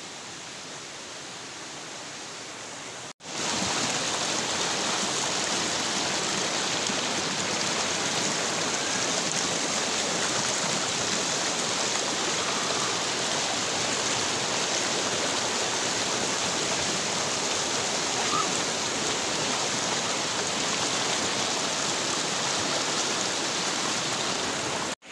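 Shallow rocky river rushing and splashing over boulders in small rapids, a steady loud rush of water. It begins with a sudden cut about three seconds in, after a quieter steady hiss.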